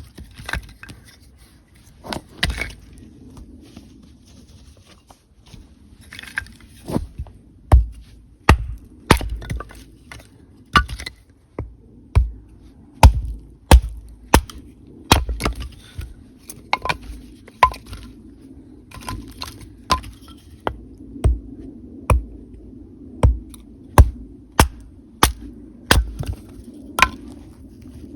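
Wood being chopped: a few scattered knocks, then from about seven seconds in a steady run of sharp chopping strokes, about one or two a second.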